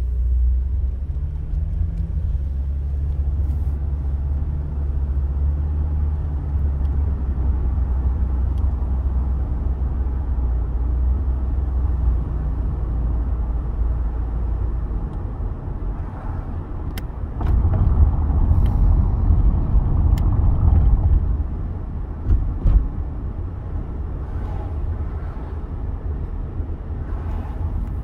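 A car driving on a road, with engine and tyre noise making a steady low hum. About 17 seconds in, the rumble grows louder for a few seconds, then settles back.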